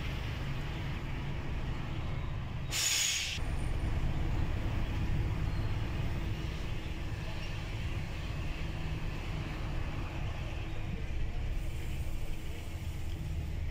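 Truck engine running steadily as it drives in slow traffic, with one short hiss of compressed air from the air brakes about three seconds in.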